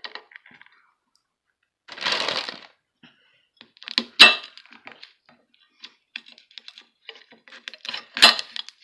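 Cooked crab shell being cracked and pried apart by hand: a sharp crack about four seconds in and another near the end, with small clicks and snaps of shell between.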